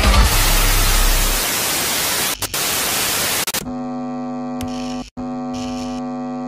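Television static hiss with two brief dropouts about two and a half seconds in. The hiss then gives way to a steady electrical buzz that breaks off for a moment about five seconds in.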